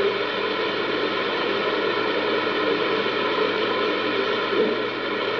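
Steady loud hiss like static, with a buzzing hum running through it.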